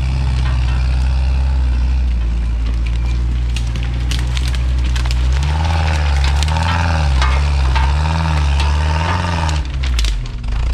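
Off-road 4x4's engine running at low revs, then revved up and down in several waves through the second half before easing off near the end. Stones crunch and crack under the tyres throughout.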